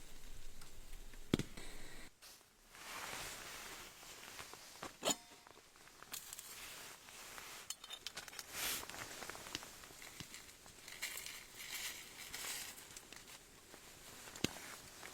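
Irregular rustling and crinkling from objects being handled, with three sharp clicks or clinks: one early, one in the middle and one near the end.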